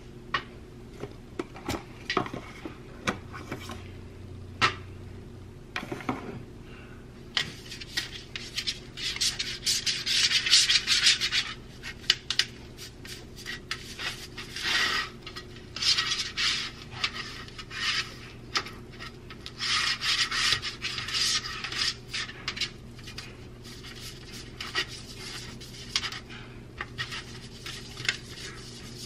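Fingers rubbing butter over a dark metal baking sheet to grease it: a few light clicks and taps in the first seconds, then repeated rasping swishes as the hand sweeps back and forth across the pan.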